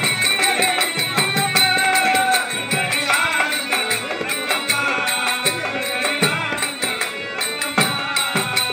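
Tamil folk music for a temple-festival dance: steady drumbeats, rattling or jingling percussion, and a sustained melody line.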